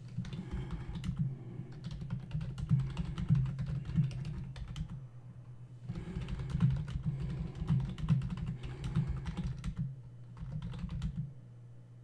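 Typing on a computer keyboard: runs of rapid keystrokes with a short pause about five seconds in, dying away shortly before the end, over a low steady hum.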